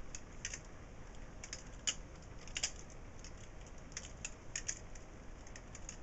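Balisong (butterfly knife) being flipped open and closed in the hand: its swinging handles and blade give a scatter of light, irregular metal clicks and clacks, with two louder clacks a few seconds in.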